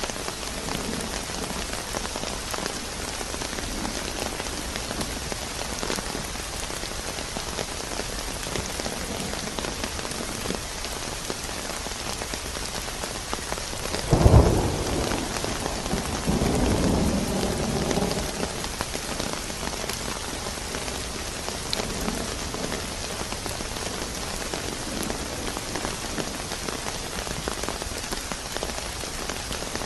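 Steady rain falling throughout. About halfway through comes a sudden crack of thunder, followed a second or two later by a rumble of thunder lasting a couple of seconds.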